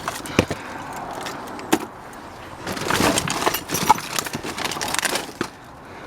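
Scrap being rummaged in a dumpster: scattered sharp clinks and knocks, with a busier stretch of clatter and rustling about three seconds in.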